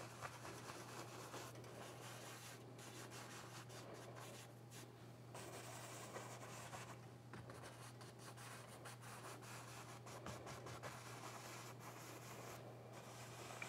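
Faint brushing of a paintbrush blending oil paint on a canvas, the rubbing strokes coming and going, over a low steady hum.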